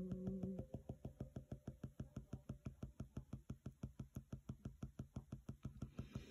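Faint, steady drumbeat, about six even beats a second, its weight in the low end. A held hummed tone trails off about half a second in.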